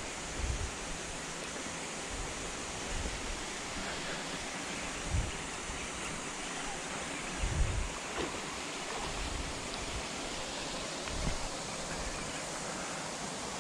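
Steady wind noise on the microphone, with a few short low thumps.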